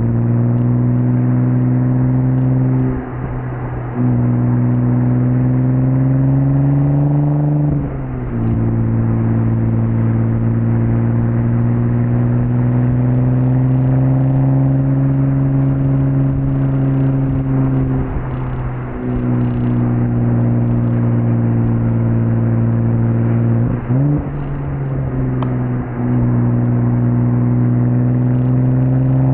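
1998 Audi S4 B5's 2.7-litre twin-turbo V6 running under way. The revs climb slowly and fall back, with four brief breaks where the pitch drops and the sound dips as the throttle is lifted.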